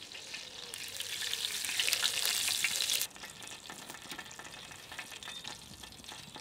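Wood fire crackling and hissing over a big bed of embers, with many small pops. It is louder for the first three seconds, then drops suddenly to a quieter crackle.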